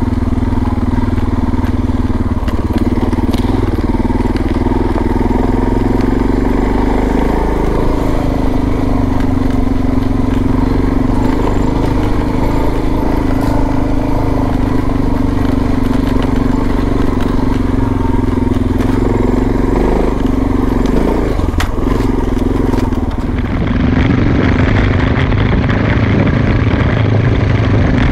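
Suzuki DR650's single-cylinder four-stroke engine running under way at fairly steady revs, its pitch drifting slightly up and down. The sound shifts about 23 seconds in.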